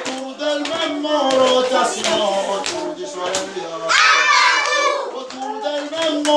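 Young children singing a classroom song together in held notes, with scattered hand claps.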